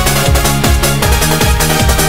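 Electronic dance music with no vocals: a steady four-on-the-floor beat under a pulsing bass line that steps between notes.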